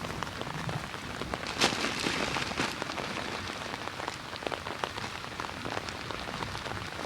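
Hard rain falling steadily, an even hiss of drops. About one and a half seconds in comes a louder rushing whoosh lasting about a second.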